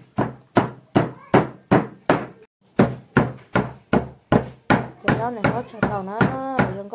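Cleaver chopping raw meat on a round wooden chopping block, steady sharp strikes about three a second with a brief pause about two and a half seconds in. A voice sounds over the last couple of seconds of chopping.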